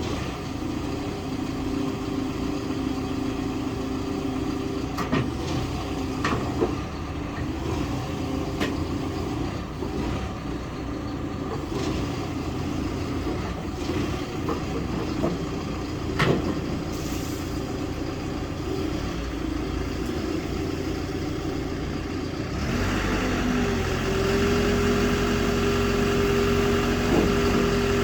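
Hidromek HMK 102B Supra backhoe loader's diesel engine running steadily, with a few sharp clanks along the way. About three quarters of the way through, the engine picks up speed and runs louder.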